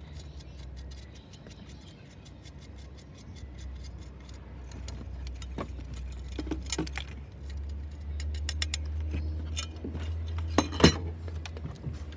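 Metal parts and tools clinking and rattling as a truck's evaporator housing and its sheet-metal bracket are worked loose by hand, with a run of quick light ticks in the first few seconds and one sharp metallic knock near the end, over a steady low hum.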